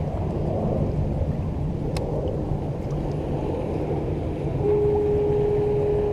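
Steady low rumble of a boat engine running on the harbor water. About three-quarters of the way in, a single steady tone starts and holds.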